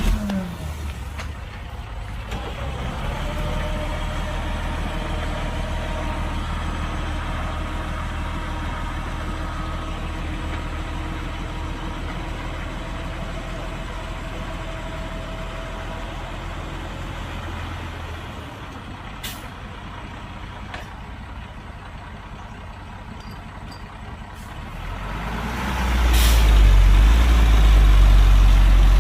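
Heavy diesel engine running steadily, then growing much louder and deeper about 25 seconds in and staying loud to the end.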